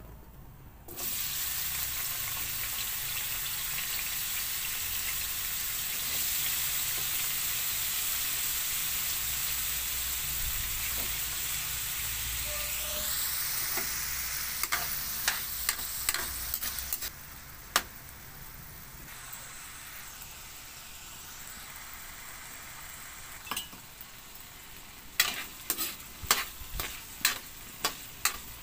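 Diced potatoes frying in oil in a wok: a loud sizzle starts suddenly about a second in, holds steady, then drops to a quieter sizzle about two-thirds through. A metal spatula stirs them, clicking and scraping against the wok in quick strokes near the end.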